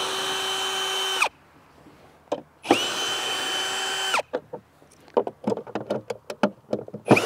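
Ryobi brushless cordless drill spinning an 8mm socket to back out mower-deck cover bolts. It makes two runs of about a second and a half each, the motor whine rising to a steady speed and then cutting off sharply. A string of quick light clicks follows, and another run starts right at the end.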